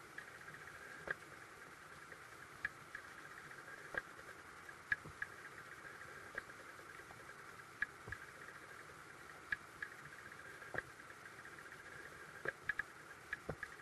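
Creek water heard through a submerged camera: a steady hiss with irregular sharp clicks and ticks, about one a second, and a quick cluster of clicks near the end.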